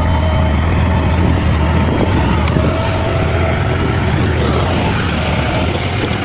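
Bulldozer's diesel engine running steadily under load with a deep drone, and a faint wavering higher whine drifting above it.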